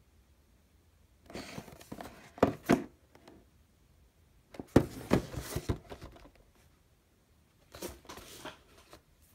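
Cardboard retail box being handled and turned, in three bouts of rustling and scraping with sharp knocks: about a second in, around the middle, and near the end.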